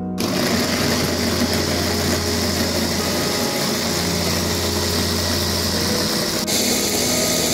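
Electric mini food chopper switched on about a quarter second in, its motor and blades whirring steadily as they chop red chillies down to a paste, with a brief dip near the end.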